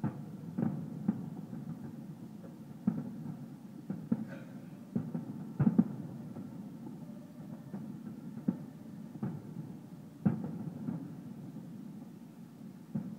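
Distant fireworks going off in scattered, irregular bangs, about a dozen over a low continuous rumble, with the loudest bangs around the middle.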